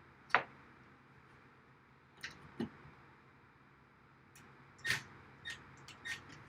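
A handful of sharp knocks and clicks, spaced irregularly, from tools and rack parts being handled on a workbench, the loudest just after the start and again about five seconds in; no drill is running.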